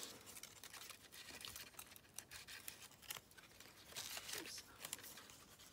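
Faint rustling and crinkling of thin die-cut card as delicate paper leaves are handled and pulled free from their sheet, with small ticks and snaps of paper.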